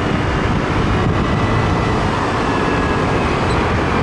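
Motorcycle riding along a city street: steady engine and road noise, with wind rushing over the bike-mounted microphone.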